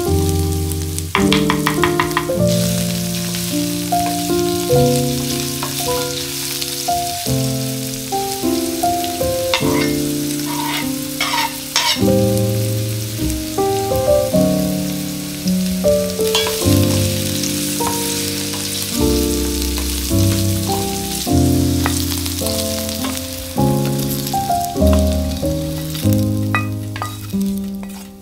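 Diced zucchini and garlic sizzling in oil in a stainless steel frying pan, with a few clinks around the middle. Background music with a run of steady notes plays over it.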